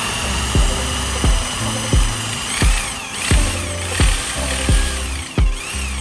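Background music with a steady thumping beat and a stepping bass line. A steady high whine runs through the first half and stops about two and a half seconds in.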